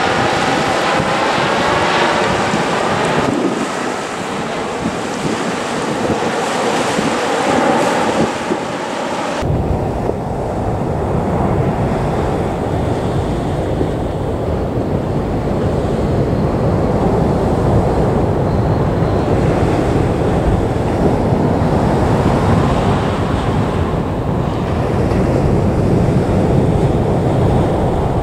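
Jet engines of a Boeing 737-800 passing overhead on its arrival, a steady rush with a slowly sweeping, phasing tone. About nine seconds in the sound cuts off suddenly and gives way to wind buffeting the microphone, a steady low rumble.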